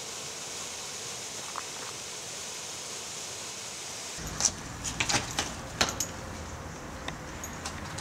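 Steady rushing of a small forest stream. About four seconds in, the background changes abruptly to a low rumble, with a quick run of sharp clicks and knocks.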